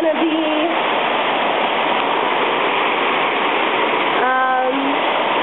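Heavy rain pouring down in a steady, dense hiss. A voice calls out briefly about four seconds in.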